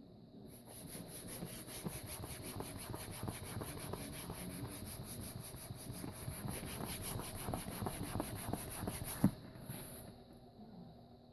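Fast, steady back-and-forth rubbing or scrubbing strokes by hand on a surface, about five strokes a second, ending with a single knock about nine seconds in.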